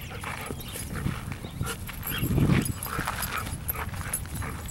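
Several dogs play-fighting: short dog vocalizations and scuffling, with a brief louder low rush about halfway through.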